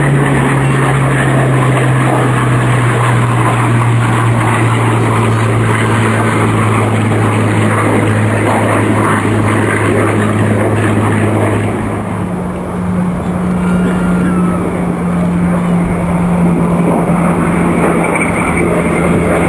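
The Consolidated Catalina's twin radial piston engines droning with a steady propeller note as the flying boat displays. The note steps up in pitch about twelve seconds in, just after a brief dip in loudness.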